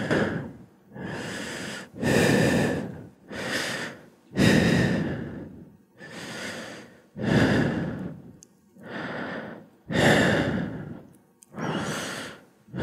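Heavy, audible breathing of a man with a severe, long-standing wheezing problem: about a dozen drawn-out breaths in and out, roughly one a second.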